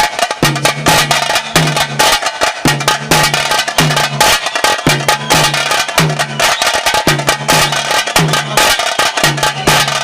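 Taase drums beaten rapidly with sticks in the driving pili nalike (tiger dance) rhythm, with a low beat repeating steadily under the dense strokes.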